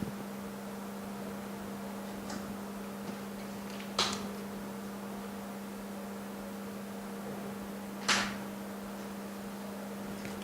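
Steady electrical hum with three short clicks about four seconds apart, the last one a little longer.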